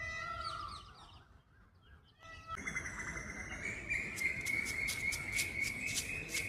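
A peafowl gives a short pitched call right at the start. From about two and a half seconds in, a steady high buzz sets in, with rapid sharp ticks over it during the last couple of seconds.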